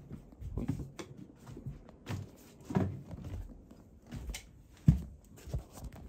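Scattered knocks, thumps and rustling from a handheld camera being moved about quickly, with the loudest thump about five seconds in.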